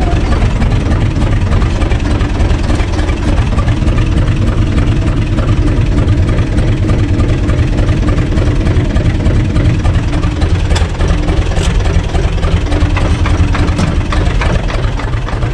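UTB U445 DT tractor's diesel engine running steadily at low revs, heard from inside the cab.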